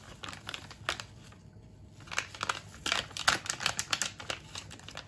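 Packet of instant chocolate sauce powder crinkling and crackling as it is shaken and squeezed empty over a pot. There are scattered crackles early on and a dense run of them about three seconds in.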